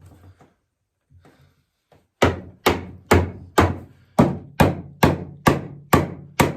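Steady hammer blows on wood, about two a second, starting about two seconds in, each with a short ringing tail: a rustic sourwood rocking chair arm being driven onto its post.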